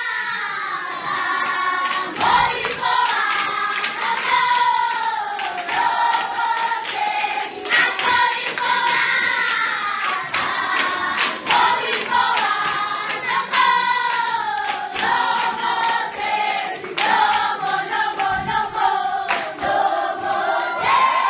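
Children's choir singing together, with hand claps through the song.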